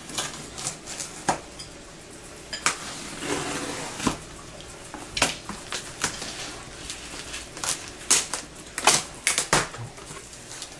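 Cardboard shipping box being opened: a hand-held cutting tool slits and scrapes along the packing tape, and the cardboard flaps rustle and knock. It comes as irregular sharp clicks and scrapes, with a denser run of clicks near the end.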